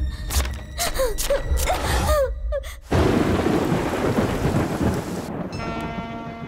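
Sharp cracks and short sliding tones, then about three seconds in a sudden loud rush of heavy rain and thunder that fades over the next two seconds. A held musical chord comes in near the end.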